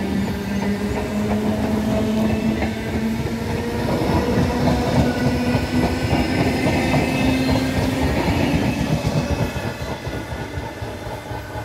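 Belgian SNCB electric multiple unit pulling away and accelerating: its motor whine rises steadily in pitch over the rumble and clatter of wheels on rails and points. It fades near the end as the train draws away.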